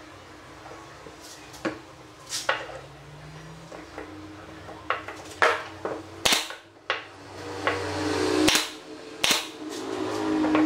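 Pneumatic brad nailer firing a series of sharp snaps, some in quick pairs, as brads are shot into a hardwood hexagon frame.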